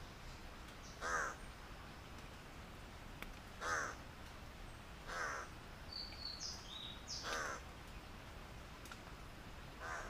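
Blue bird-of-paradise calling: five short, loud calls about two seconds apart, the last right at the end.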